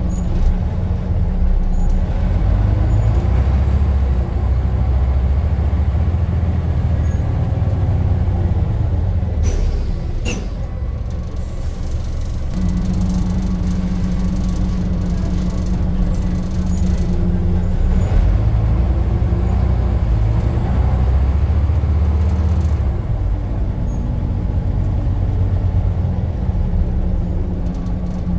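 Scania N94 bus's rear-mounted five-cylinder diesel engine running loudly under way, heard inside the saloon, its note rising twice as the bus accelerates. A short hiss of air comes about ten seconds in.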